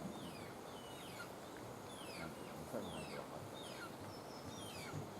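Many short, high-pitched chirps, each falling in pitch, repeating two or three times a second.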